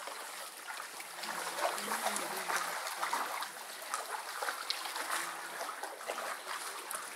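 Steady running and trickling water of a penguin pool, with faint voices in the background.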